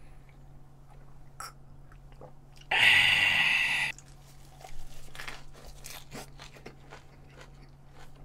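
A loud crunching bite into a lettuce wrap of grilled pork about three seconds in, lasting about a second, followed by close-miked chewing with scattered small clicks.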